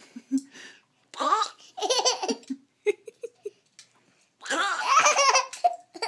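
Toddler laughing hard: two long bursts of high-pitched belly laughter, one about a second in and one near the end, with short giggles between.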